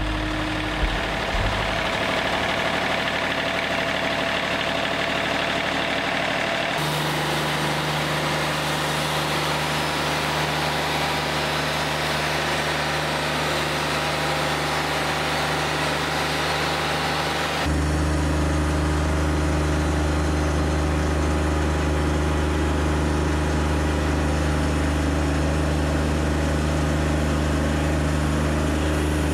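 Wood-Mizer LT40 Wide portable band sawmill running steadily, its engine under load as the band blade saws through a log. The sound changes abruptly twice, about a quarter and about two-thirds of the way through, with a stronger low engine hum in the last part.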